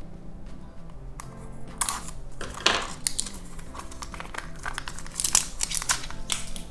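Plastic toy packaging crinkling and tearing in irregular bursts as a blind package is opened by hand, over light background music.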